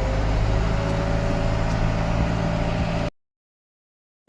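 Tractor engine running under load with a whine that climbs slowly in pitch as it picks up speed; the sound cuts off abruptly about three seconds in.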